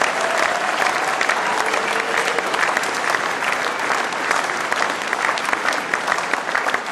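A large audience clapping, a dense steady applause that carries on without a break.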